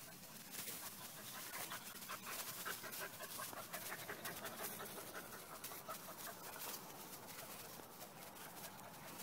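A dog panting quickly and faintly, a steady run of short breaths that fades out near the end.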